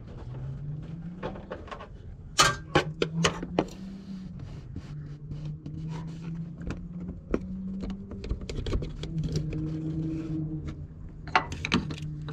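Flathead screwdrivers clicking, tapping and scraping against a radiator line's retaining clip as it is pried loose, with a few sharper clicks about two and a half seconds in and near the end. A steady low hum runs underneath.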